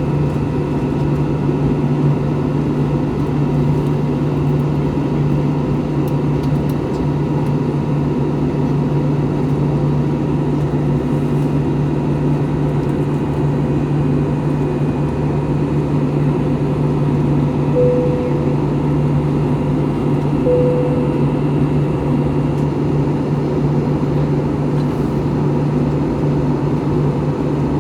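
Steady cabin drone of an Airbus A321 in climbing flight: its two CFM56 jet engines and the rush of air, heard from a seat over the wing, with a low hum and a few steady whining tones. Two short tones sound about 18 and 20 seconds in.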